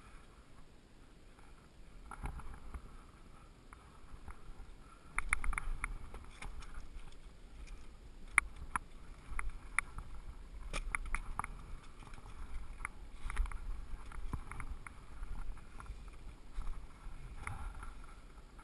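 Irregular knocks, clicks and scrapes of a climber scrambling up rock, boots and gloved hands on stone and gear clinking, over a low rumble of wind and handling on the body-worn camera. The knocking starts about two seconds in and grows busier and louder from about five seconds on.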